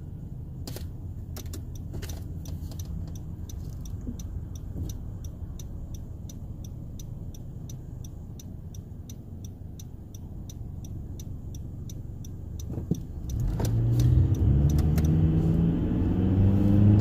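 Car cabin road-and-engine rumble with a steady, even ticking of the turn-signal indicator. About thirteen seconds in, the engine accelerates hard, rising in pitch and getting louder.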